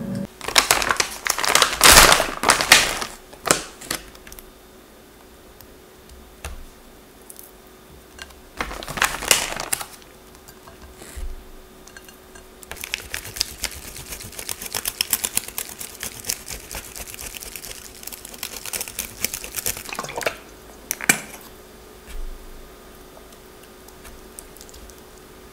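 Plastic zip-lock bag crinkling in two bursts, then several seconds of fine, rapid crackling as toppings are crumbled and sprinkled over a salad, with a single light knock near the end.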